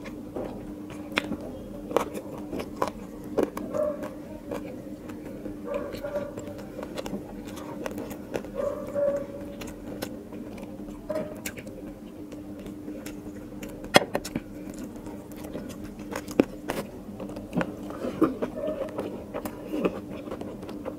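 Close-miked eating of biryani by hand: chewing with wet mouth clicks and smacks, and fingers mixing rice on a plate, with many small sharp clicks and one louder knock about two-thirds of the way through. A steady low hum runs underneath.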